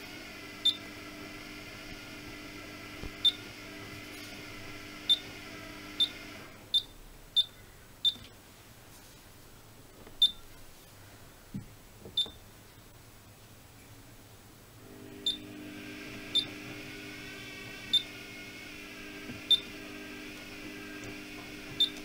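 Miele W5000 washing machine control panel giving a short, high beep at each button press, about fifteen beeps at irregular intervals as the menu is stepped through. Under them a steady hum stops about six seconds in and returns about fifteen seconds in.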